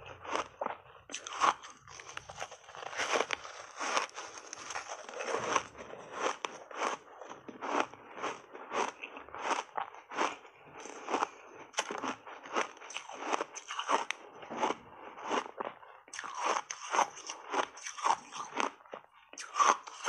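A frozen buckwheat ice bar dusted with matcha powder being crunched and chewed close to a lapel microphone: a steady run of sharp, crisp crunches, about two a second.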